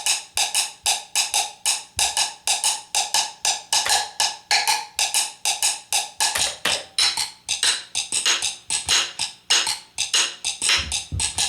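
Salsa cáscara pattern played at an easy tempo as sharp, dry wooden clicks, about four to five strokes a second in an uneven repeating rhythm with some strokes accented.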